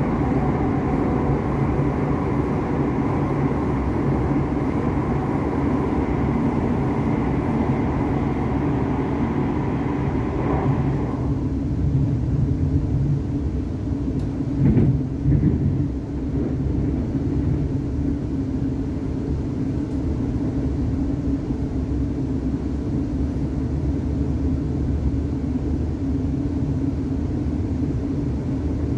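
Cabin sound of a Class 360 electric multiple unit running at speed: a steady rolling rumble of wheels on rail. The extra tunnel roar drops away about eleven seconds in as the train leaves the tunnel, and a few seconds later there is a brief clatter of wheels over pointwork as it joins the main line.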